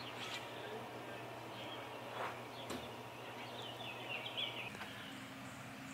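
Outdoor ambience of songbirds chirping, with a busier run of song near the middle, over a faint steady low hum.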